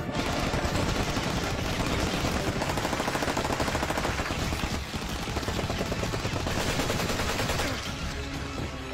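Rapid automatic rifle gunfire in continuous bursts, easing off briefly about five seconds in and again near the end.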